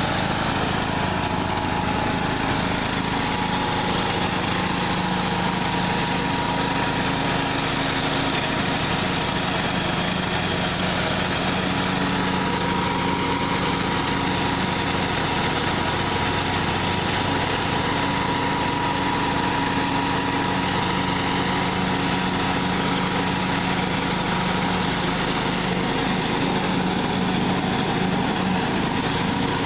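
John Deere LA115 riding mower's 19.5 hp Briggs & Stratton engine running steadily at a constant speed, with no change in pitch or level.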